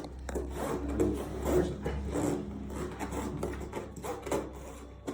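Rubbing and rustling as a patient is shifted and positioned on a padded treatment bench, with a steady low hum underneath that stops near the end.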